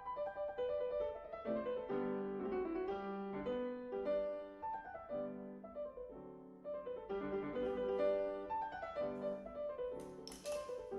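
Background piano music, a classical sonata movement in a brisk tempo, with a brief hiss about ten seconds in.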